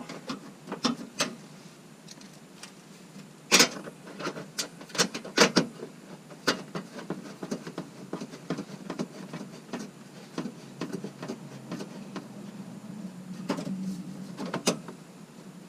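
A stiff plastic air box panel being handled and pushed into place in a wheel well: irregular taps, clicks and knocks of plastic against the fender, the sharpest about three and a half seconds in and a cluster a couple of seconds later.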